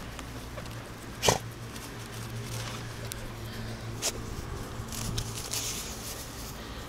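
A dog sniffing and rustling through grass, with two sharp clicks: the louder about a second in, another about four seconds in. A low steady hum runs underneath.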